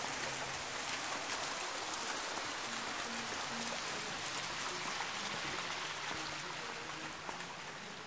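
Steady, even rush of water falling at a waterfall: a constant hiss with fine splashing.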